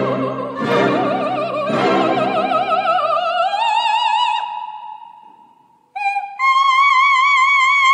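Operatic singing over orchestral music: three loud orchestral chords in the first two seconds, under a high held note with wide vibrato. The note climbs and fades away about six seconds in, then a new loud note with vibrato begins and is held.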